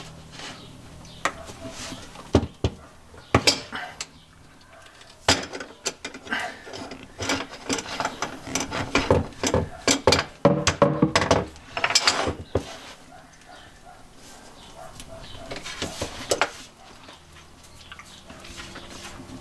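Manual PEX expansion tool (ProPEX-style hand expander) being handled and worked: a run of metallic clicks, clanks and rattles from its handles and expander head as its ring is screwed down, densest through the middle, with a quieter stretch near the end.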